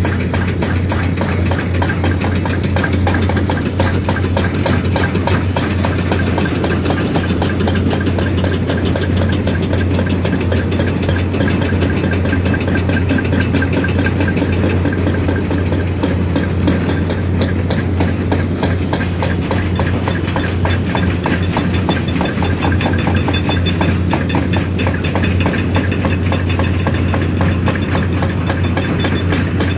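Engine of heavy mining machinery running steadily at a constant speed, with no revving or pauses.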